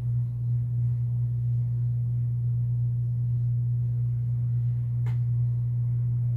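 A steady low hum at one pitch, with a faint click about five seconds in.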